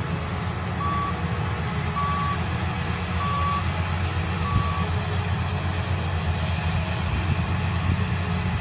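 Tracked rice combine harvester's engine running steadily, with its warning beeper giving four short beeps about one a second in the first five seconds.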